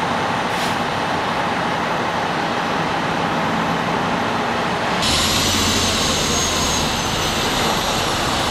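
Steady engine noise from idling fire apparatus. About five seconds in, the sound changes abruptly to a closer, louder engine with a thin, steady high whine.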